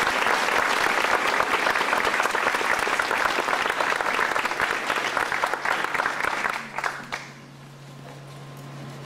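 Audience applauding with many hands clapping, dying away about seven seconds in and leaving a faint low hum.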